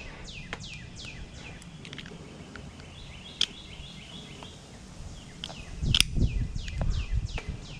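A bird calling steadily, a quick series of falling chirps repeated two or three times a second. Near the end come louder knocks and scraping from metal being worked, as a microwave part is scraped to see whether it is copper.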